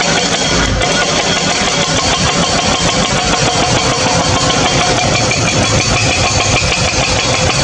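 An engine running steadily, with a fast low pulsing and no sudden changes.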